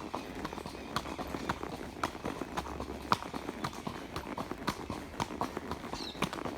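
Horse hooves clip-clopping steadily on the trail, about two sharp hoof strikes a second.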